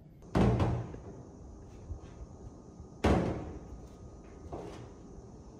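Two loud knocks about two and a half seconds apart, each ringing out briefly, with a few faint knocks between.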